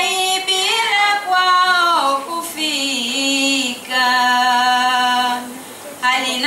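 A woman's voice singing a Swahili shairi unaccompanied into a microphone, in a slow chant that glides between notes and then holds one long steady note; it breaks off briefly near the end and picks up again.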